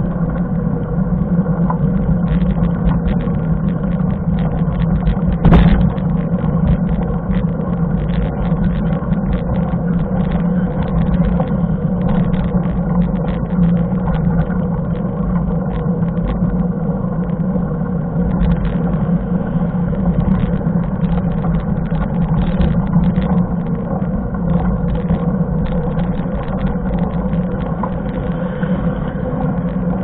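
Road noise of a mountain bike ridden on asphalt, picked up by a camera mounted on the bike: a steady low rumble with frequent small rattles and clicks, and one sharper knock about five and a half seconds in.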